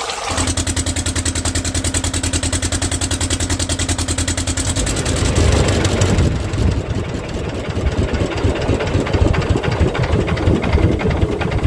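Boat engine running with an even, rapid chugging beat, then opened up about five seconds in, running louder and rougher as the boat gets under way to the next net.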